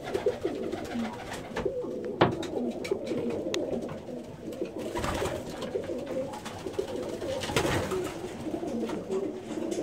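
Domestic pigeons cooing over one another without a break. A few sharp knocks and two short noisy bursts, about five and seven and a half seconds in, stand out from the cooing.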